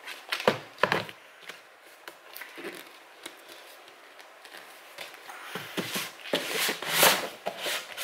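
Cardboard product box handled by hand: a couple of knocks about half a second in, then rubbing and scraping of cardboard, loudest near the end.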